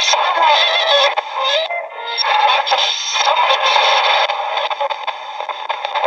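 Shortwave AM broadcast of music with singing, coming from the small speaker of an ATS-20 receiver tuned to about 13.64 MHz. It sounds thin, with no bass.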